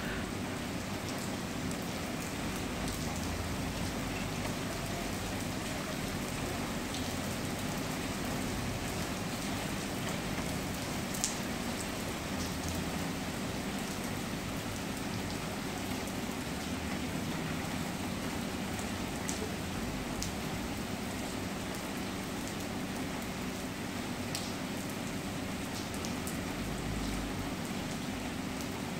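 Steady rain falling on a flooded pavement and its standing water, a continuous even hiss. A few sharp ticks stand out, the loudest about eleven seconds in.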